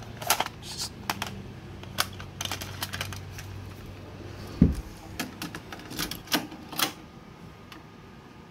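Irregular clicks and knocks of handling and moving about, with one dull thump about halfway through. A faint low hum runs until the thump.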